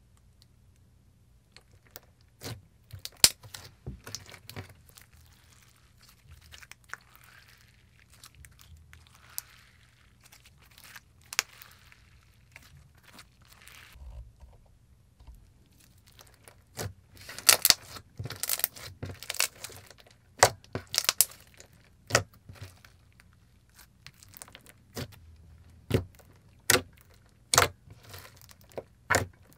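Thick, glossy slime being poked, squeezed and stretched by hand, giving off irregular sticky clicks and pops. The clicks are sparse at first, with a soft hiss of stretching, and come more often and louder in the second half.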